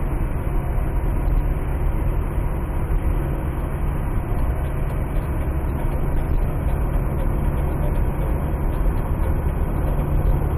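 Steady road and engine rumble of a moving car heard from inside the cabin.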